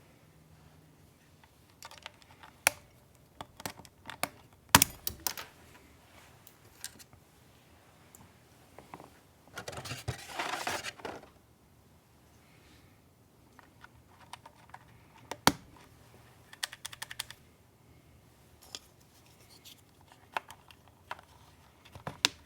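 Scattered clicks and taps from hands working on a mechanical keyboard, with a brief rustling noise about ten seconds in.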